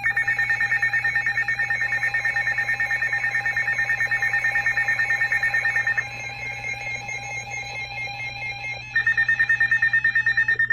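Emergency Alert System alert tone announcing a new National Weather Service warning: a loud electronic alarm of steady high tones pulsing rapidly. About six seconds in it turns quieter, and about three seconds later it comes back loud.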